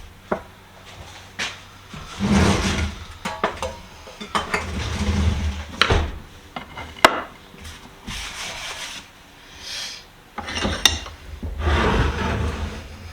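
A rag wiping excess oil off a freshly oiled metal bench vise, in several rubbing strokes of about a second each, with knocks and clinks as the vise is handled. There is one sharp click about seven seconds in.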